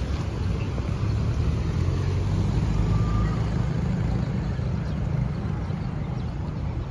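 A car driving past close by, heard as a steady low rumble of engine and tyres.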